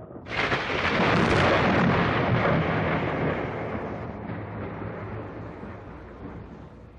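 Thunderclap from a nearby lightning strike: a sudden crack about a third of a second in, swelling into a loud crashing rumble that slowly rolls away and fades over the next several seconds.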